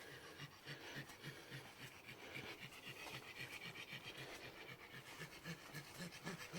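A dog panting quickly and faintly, in an even rhythm of about four breaths a second.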